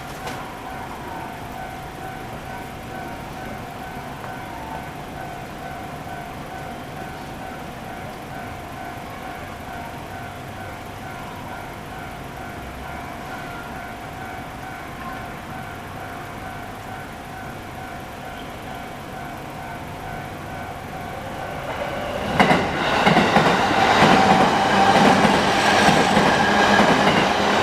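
Japanese railway level-crossing warning bell ringing steadily with a rapid repeating ding. About 22 seconds in, a JR Nanbu Line train passes over the crossing, loud and drowning out the bell.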